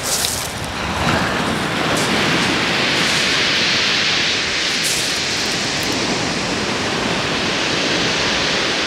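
Surf breaking and washing over a shingle beach: a steady rushing hiss that swells about a second in and holds.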